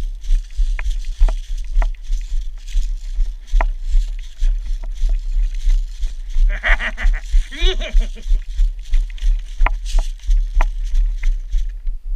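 Footsteps of a player moving across snow, giving a steady low thudding about twice a second, with a few sharp clicks. A voice calls out briefly about two-thirds of the way through.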